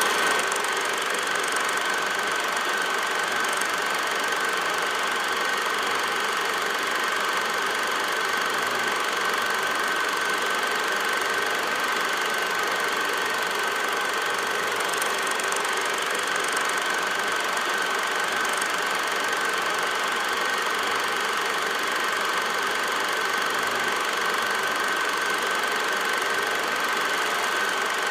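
Steady machine-like running noise with hiss and a constant high whine, unchanging throughout, with no sounds of the game.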